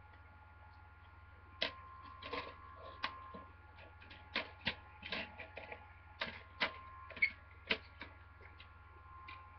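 Cardboard and plastic packaging of a DVD box set being handled and opened: a run of irregular sharp clicks and short rustles that starts about a second and a half in and stops near the end. A faint steady hum runs underneath.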